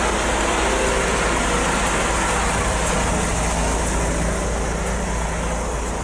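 A coach bus engine idling with a steady low hum, under a constant even hiss.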